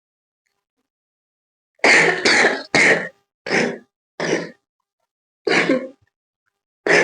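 A woman coughing in a run of about seven short coughs, starting about two seconds in; the first three come close together.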